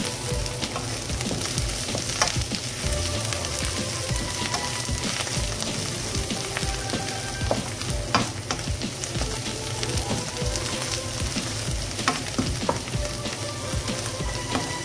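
Sliced onions and green chillies sizzling in oil in a nonstick wok, stirred with a wooden spatula, with scattered sharp pops and scrapes over a steady hiss. The onions are fried well brown.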